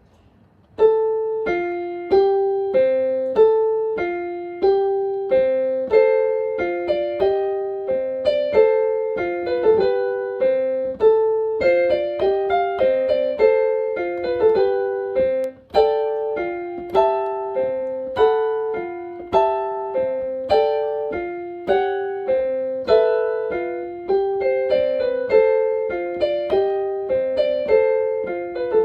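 Kawai Soundtree 4A electronic keyboard on its carillon (bell tower) voice, playing a melody of evenly paced, bell-like notes, each struck and then dying away. The playing starts about a second in.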